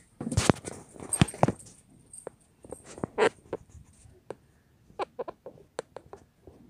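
Handling noise from a phone being gripped and repositioned: irregular clicks, taps and rubs against its body, several loud knocks in the first second and a half, then sparser taps.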